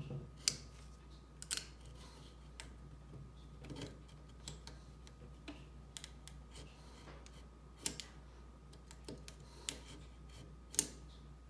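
Craft knife scoring through old wood veneer on a table top: faint scraping strokes broken by irregular sharp little clicks, the loudest of them in the second half.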